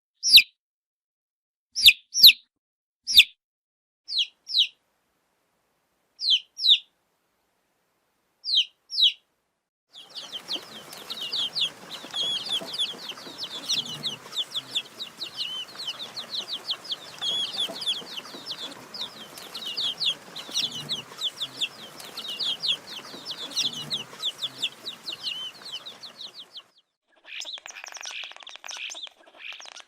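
Baby chicks peeping: for the first nine seconds a few single peeps that fall sharply in pitch, often in pairs with gaps between. Then a dense, continuous chorus of many chicks peeping together, which near the end gives way to a different, rougher stretch of peeping.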